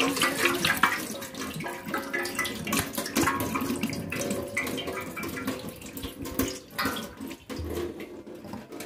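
Water emptied out of a fabricated metal coolant header tank, splashing and trickling into a stainless steel sink, tapering off toward the end.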